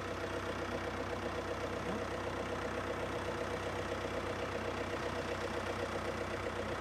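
White 2-60 farm tractor's engine running steadily at a constant speed, with no revving.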